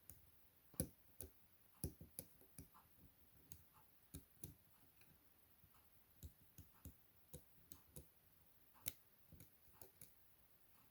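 Faint, irregular clicks and taps of a lock pick working the rotating pins of a Chubb M3 pin-tumbler lock, with two sharper clicks about a second in and near nine seconds.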